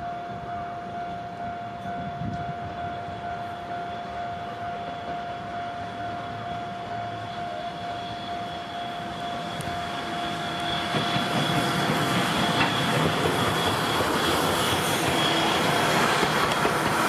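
C58 steam locomotive running through a rail yard over a steadily sounding level-crossing alarm, the train noise swelling from about ten seconds in as the engine draws close and passes.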